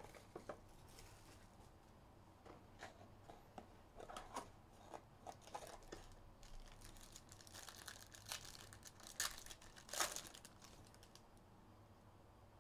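Clear plastic wrap on a trading card box crinkling and tearing as it is opened, among light clicks and taps of cards and packaging being handled. The crinkling is densest from about seven to ten seconds in, with the loudest crackles near the end of that stretch.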